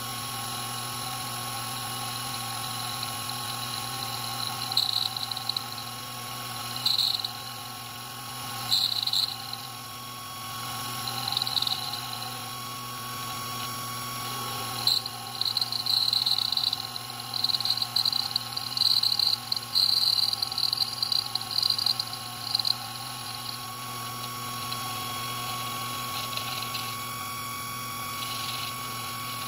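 Proxxon FD150/E mini lathe running with a steady motor whine while its tool bit cuts the spinning brass workpiece, giving intermittent high-pitched squeals in short bursts, most frequent a little past halfway through.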